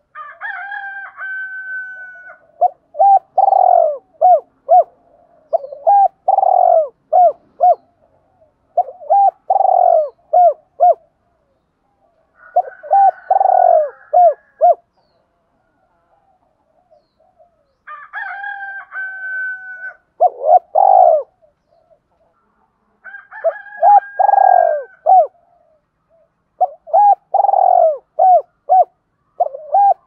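Spotted dove cooing in repeated phrases of three to five short coos, with pauses between phrases; twice, about the start and about 18 s in, a phrase opens with a longer, higher drawn-out note. It is the call used as a decoy to draw in wild spotted doves.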